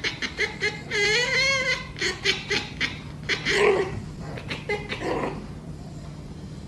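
A person laughing in quick repeated bursts, with a higher, wavering drawn-out laugh about a second in and a louder burst a little after the middle, then fading off.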